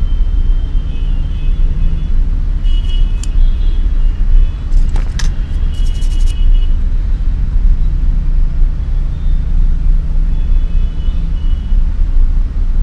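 Steady low rumble of background noise, with a few faint clicks and short faint high tones around the middle.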